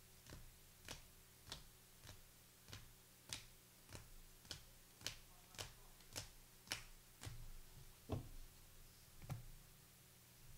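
Faint, sharp light clicks at a steady pace, a little under two a second, spacing out near the end.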